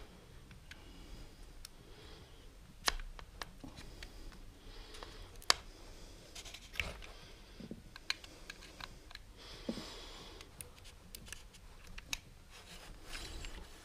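Faint handling noise from a dismantled TiMotion linear actuator, its shaft tube and inner parts being worked loose by hand. Scattered sharp clicks and light rubbing at irregular moments, the loudest click about five and a half seconds in.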